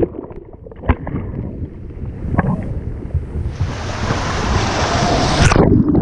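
Shore-break waves washing over a camera sitting at the waterline: a low churning rumble with a few sharp knocks, then a little past halfway the hiss of breaking foam swells up and cuts off suddenly near the end.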